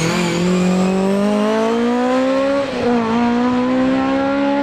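Hill-climb race car engine accelerating hard, its revs rising steadily. About three seconds in the revs drop briefly at an upshift, then climb again.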